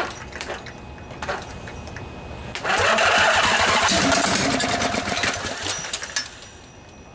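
Briggs & Stratton Intek OHV twin-cylinder engine cranking on its starter with starting fluid in the intake. About two and a half seconds in it fires and runs briefly for about three seconds, then fades out. It wants to start: a good sign for the junkyard engine.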